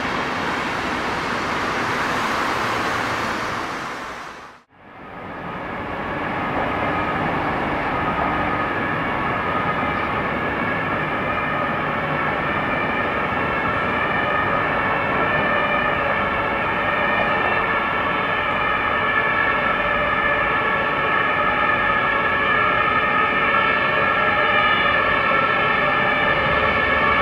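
InterCity coaches rolling across a railway bridge, a steady rushing rumble that cuts off about four and a half seconds in. After that comes a slowly swelling sound with several steady high tones.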